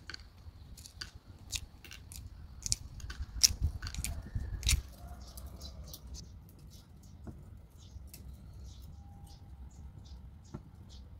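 The shell of a hard-boiled egg being cracked and peeled by hand: a quick run of small sharp crackles and ticks over the first few seconds, thinning to a few scattered ticks afterwards.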